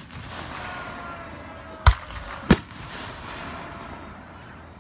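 Fireworks exploding: a sharp bang at the very start, then two more bangs about two and two and a half seconds in.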